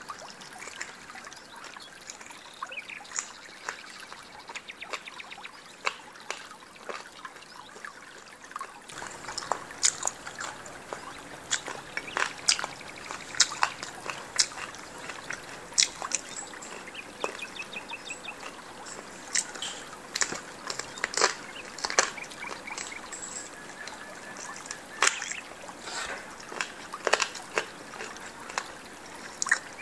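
Wet eating sounds of someone chewing and sucking on steamed chicken feet: a long run of sharp, irregular wet clicks and smacks, with a few brief squeaky sucking sounds.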